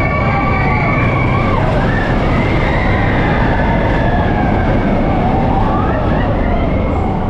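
Expedition Everest's roller coaster train running at speed on its steel track, a heavy, steady rumble with wind noise. Riders scream over it, several wavering, sliding cries.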